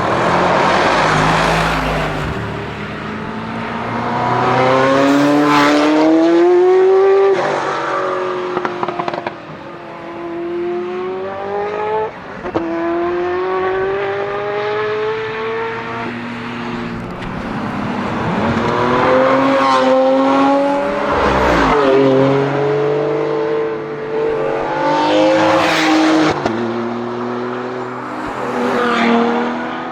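Ferrari F40 LM's twin-turbo V8 accelerating hard, its pitch climbing and then dropping back at each gear change, over and over. Sharp exhaust cracks come around several of the shifts.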